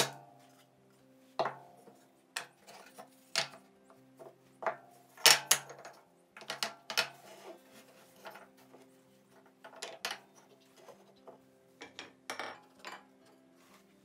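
Pallet-wood pieces knocked and set down on a wooden workbench: a run of sharp wooden clacks, irregular, the loudest about five seconds in. Soft background music with held notes plays underneath.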